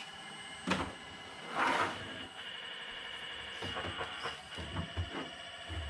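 Scale RC excavator at work in a dirt pile: a steady high whine from its pump, with a scraping rush of soil about two seconds in and a few knocks and soft thuds from the bucket and arm.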